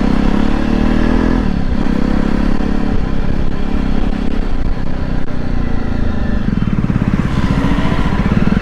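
Jawa motorcycle's single-cylinder engine running while riding along, its exhaust note dipping briefly about a second and a half in and pulsing more strongly near the end.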